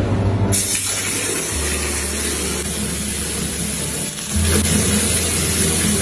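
Water running from a bathtub spout into the tub, a steady hiss that starts about half a second in, over background music.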